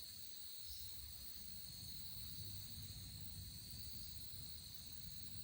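Insects singing in a steady, high-pitched chorus, with a faint low rumble underneath.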